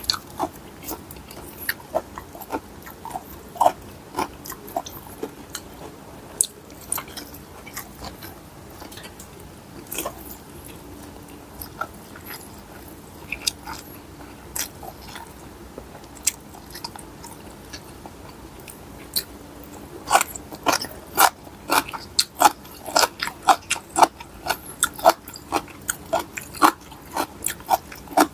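A person eating mixed-seafood papaya salad: irregular mouth clicks from biting and chewing. They are sparse at first, pause for a spell in the middle, then come quicker and louder for the last third.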